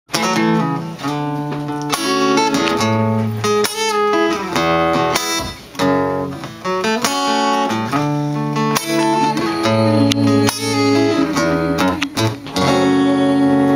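Acoustic guitar strumming chords: the instrumental intro of a song, before the singing starts.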